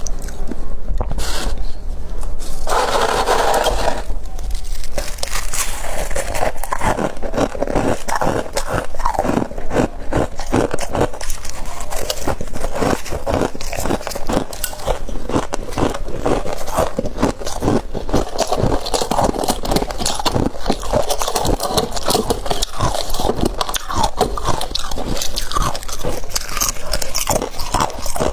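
Close-up ASMR crunching and chewing of freezer frost: dense, rapid crackling crunches, mixed with scraping sounds.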